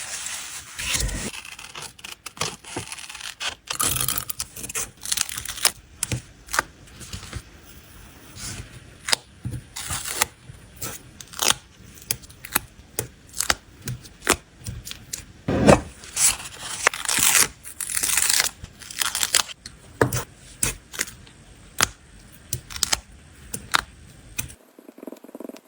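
Journal-making stationery handling: paper and stickers being handled, scraped and peeled, with frequent irregular sharp taps and clicks. Near the end it switches abruptly to a softer, steadier sound.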